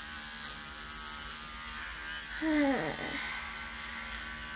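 Electric hair clippers running steadily while cutting hair at the back of the head. About two and a half seconds in, a short, loud voice-like sound falls in pitch over roughly half a second.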